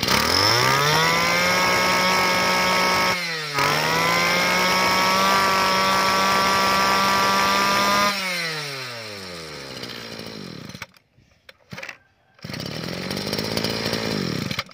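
Small two-stroke brush cutter engine, a Kawasaki TG20-type with a 30 mm bore, revved up to high speed and held there. It dips for a moment about three seconds in, revs up again and holds until about eight seconds in. Then it falls back in pitch, cuts out briefly and runs on lower near the end.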